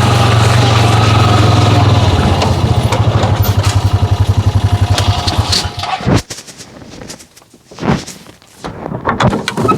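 Honda 500 side-by-side's engine idling, then switched off: its beat slows into separate pulses and dies out about six seconds in. A few faint knocks and rustles follow.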